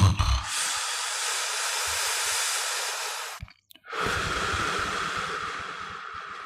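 A person snoring: a loud, low rattling snort opens into a long breathy rush of air. After a brief pause about halfway through, a second breath follows with a low rattle under it, fading slowly.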